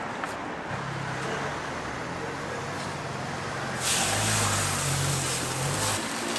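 A motor vehicle's engine hums at a street-food stall, and about four seconds in a loud frying sizzle starts suddenly as food hits hot oil on the griddle.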